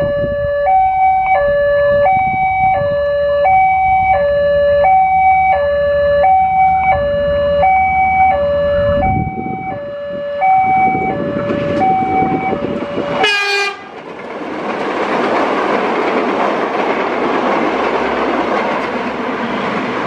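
Level-crossing siren sounding a two-tone warning, stepping back and forth between a higher and a lower tone about every half second, which stops about 13 seconds in. A brief rising tone follows, and then the steady rushing noise of the airport train passing the crossing.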